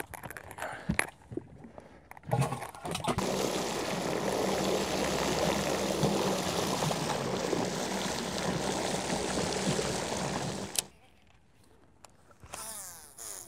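Water rushing and splashing over a steady electric motor hum on a bass boat, starting suddenly after a couple of knocks about two seconds in and cutting off abruptly near eleven seconds.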